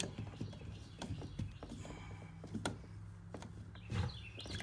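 Light scattered clicks and taps of a GFCI outlet and its wiring being handled in a metal junction box, over a faint steady low hum.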